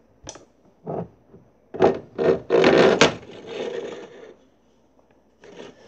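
Plush toys being handled: a few short rubbing scrapes, then a louder, longer scrape about two to three seconds in that fades away.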